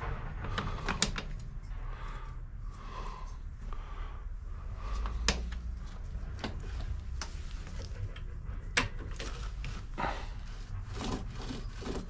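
Scattered clicks and knocks of metal tools and parts being handled and set down on a plywood work board, with one slightly louder knock about five seconds in, over a steady low hum.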